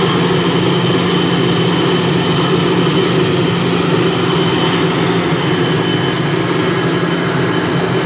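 ATR 72 turboprop engine running steadily on the ground: a loud, even drone with a high, steady whine over it.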